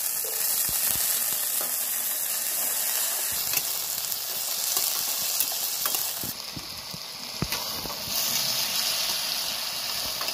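Diced raw potatoes sizzling as they hit hot oil with onion and chilli in a pan, then being stirred, the spatula clicking and scraping against the pan.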